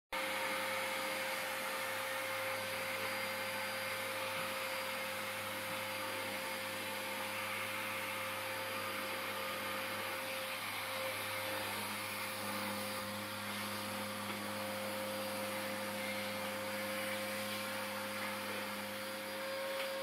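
Vacuum cleaner running steadily: a constant motor whine at one pitch over a rushing of air.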